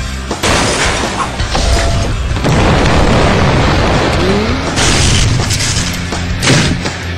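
A loud, sustained rumbling roar from a dubbed sound effect, starting about half a second in, with a deep rumble underneath and swells near the end.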